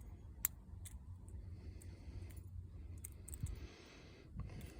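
Lock pick clicking against the pins of a six-pin Master Lock ProSeries 6852 padlock during picking: one sharp click about half a second in and a few lighter ticks around three seconds in, over a low steady hum.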